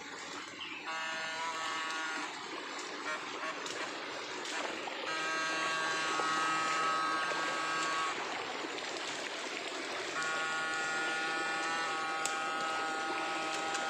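Electrofishing shocker buzzing steadily in spells of a few seconds as it is switched on and off, over the wash of running river water.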